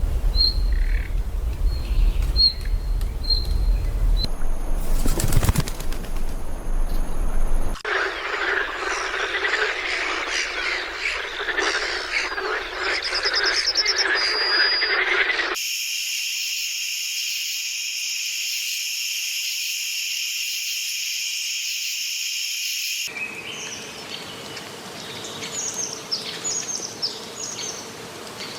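Wild birds calling and chirping in several separate recordings joined by sudden cuts: short high chirps, then a dense chorus, then a steady high-pitched drone, then quick falling chirps.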